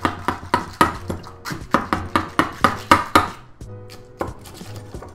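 Pogo plunger whisk pumped up and down in a bowl of eggs: a fast run of knocks, about four a second, that stops a little over three seconds in.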